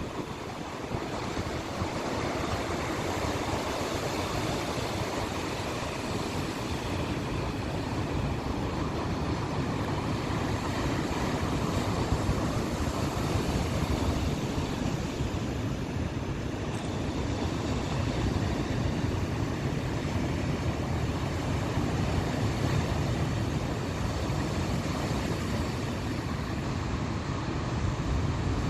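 Ocean surf breaking and washing onto the beach, a continuous rushing noise that swells slightly now and then, with wind buffeting the microphone.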